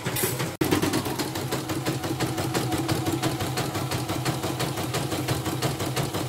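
CNY portable embroidery machine stitching, with a rapid, even stitch-by-stitch clatter over a steady motor hum, broken by a brief dropout just over half a second in. The rotary hook has been sanded and the bobbin case replaced, and the technician judges the running now stable.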